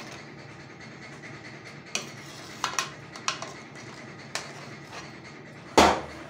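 Metal ladle knocking and clinking against a metal pot while skimming foam off boiling chana dal: several light clinks, then one much louder knock near the end.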